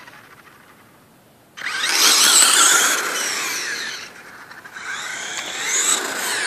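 Traxxas Mini E-Revo's brushless motor and drivetrain whining hard under full throttle. The whine starts suddenly about a second and a half in with its pitch sweeping up and down, eases off around four seconds, then comes back for a second run near the end.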